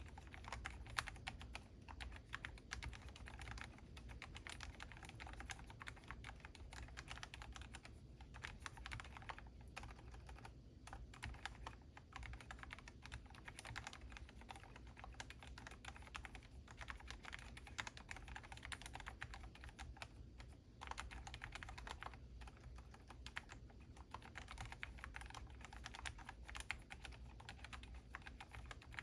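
Continuous fast typing on a Monstar Gear MK84S slim mechanical keyboard: a dense run of quiet key clicks, broken by a few short pauses.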